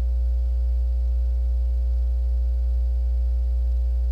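Steady, unchanging low electrical hum with a few faint steady higher tones above it; no other sound stands out.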